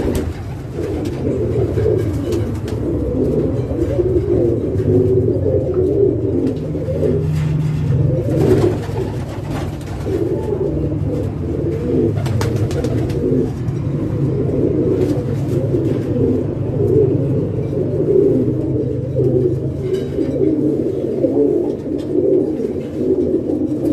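A flock of domestic pigeons cooing together, many overlapping calls making a steady, dense chorus.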